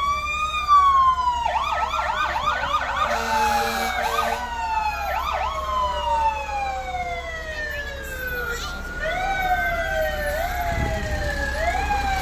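Sirens of several passing fire-department vehicles sounding at once, overlapping. One rises and falls near the start, a quick warbling yelp comes about a second and a half in, and long, slow falling wails fill the rest.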